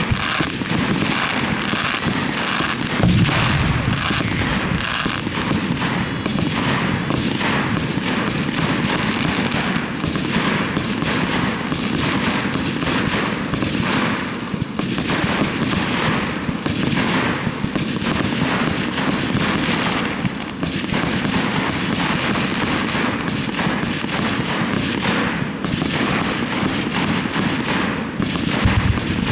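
Fireworks display going off continuously: a dense run of overlapping bangs and crackling, with a heavy boom about three seconds in.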